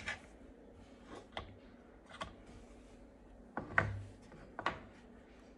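Small wooden craft pieces handled and set down on a tabletop: scattered light clicks and knocks, the loudest a little under four seconds in.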